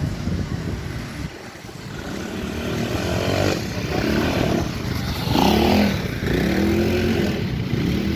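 Harley-Davidson Pan America 1250's V-twin engine revving up and down. It drops low about a second in, then climbs again with pitch rising and falling.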